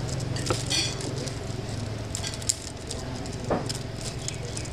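Restaurant background: a steady low hum with faint voices and scattered light clicks and knocks, one sharp click about two and a half seconds in.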